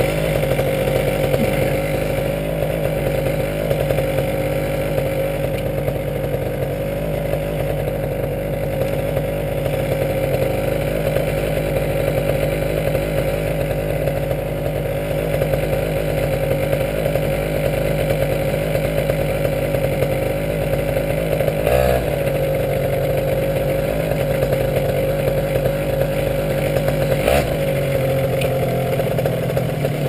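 Small engine running steadily at one even speed, with two short knocks in the second half.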